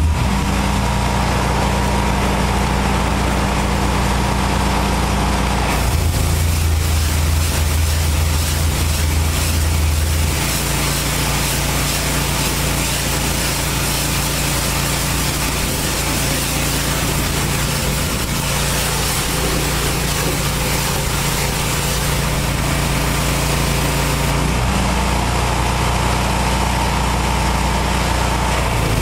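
Engine-driven pressure washer running steadily, with the hiss of its high-pressure water spray striking the truck's wheels and trailer; the engine note shifts a few times.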